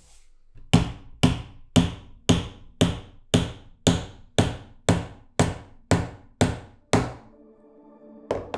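Wooden mallet striking the butt of a wooden awl handle to drive it onto the tang of the blade held in a vise: about thirteen even, sharp knocks, two a second, then one more near the end. Music comes in shortly before the end.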